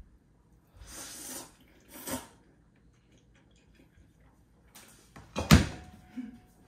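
A person slurping noodles twice, then a stainless steel mixing bowl set down hard on a countertop with a loud clank about five and a half seconds in, the metal ringing on briefly.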